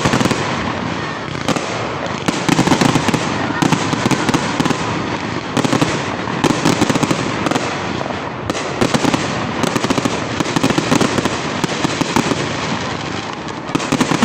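Fireworks going off in a dense, continuous barrage of bangs and crackling, with frequent louder reports.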